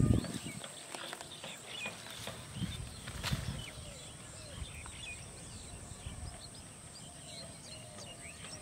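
Birds chirping again and again, with a steady high-pitched hiss. A low thump at the very start, a few softer low thuds, and a sharp click about three seconds in.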